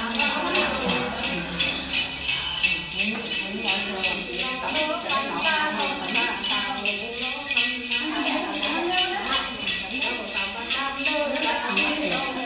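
A cluster of small jingle bells shaken in a steady, even rhythm, the ritual bell rattle of a Giáy Then ceremony, with a voice chanting over it.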